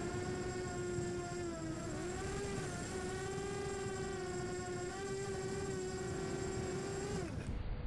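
Quadcopter drone's motors and propellers making a steady buzzing whine that wavers slightly in pitch as the drone manoeuvres, cutting off abruptly about seven seconds in.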